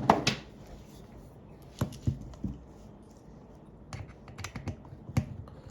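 Scattered small clicks and taps of components being pulled out of and pushed into a solderless breadboard, as the LDR and variable resistor are swapped.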